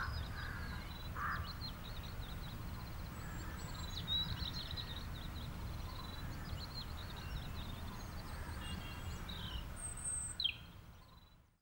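Outdoor ambience of many small bird chirps and calls over a steady low rumble, with two louder calls in the first second and a half. It fades out near the end.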